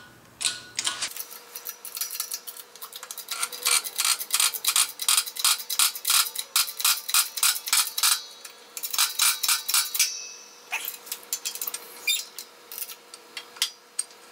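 Hydraulic bottle jack on a shop press being pumped by hand, pressing a bearing onto a gearbox input shaft: a quick, even run of metallic clicks, about four or five a second, easing off twice and going sparse near the end.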